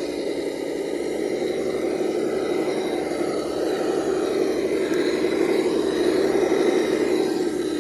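Radio-controlled rock crawler's electric motor and gear drive whirring steadily, growing slightly louder.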